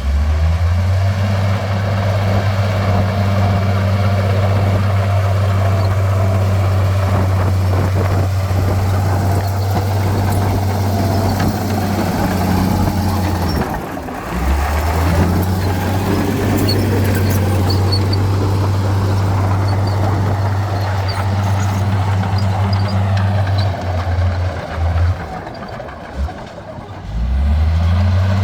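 Heavy diesel engine of earthmoving machinery running hard and steadily, easing off briefly about halfway through and again for a few seconds near the end before picking back up.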